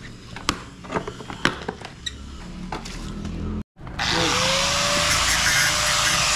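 A few sharp clicks and knocks of metal parts being handled. About four seconds in, a handheld angle grinder spins up with a rising whine and grinds loudly, cutting into the metal end of an air-conditioner coil.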